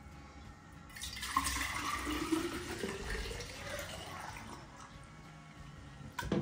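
Fresh milk pouring from a strainer into a glass Ball jar: a gushing pour that starts about a second in, then tapers off, with a tone that rises as it goes. A single sharp knock comes near the end.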